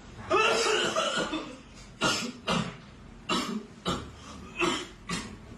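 A person coughing hard over and over: one long, drawn-out cough first, then a string of about six short hacking coughs, half a second to a second apart. It is a staged coughing fit, put on as a prank.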